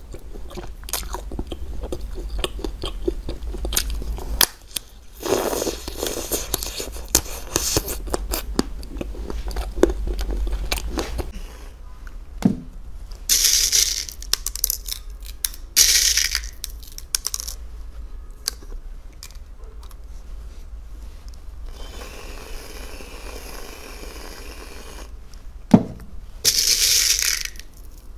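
Close-miked eating and food-handling sounds: chewing and crunching at first, then scraping and small candy beads pattering onto whipped cream on a cookie, with a few short hissing bursts of about a second each.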